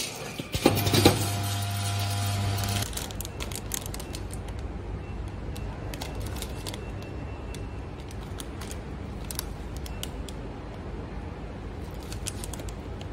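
A packing machine hums steadily for the first few seconds, then cuts off. After that, small sealed plastic packets of plastic parts crinkle and click as they are picked up and handled.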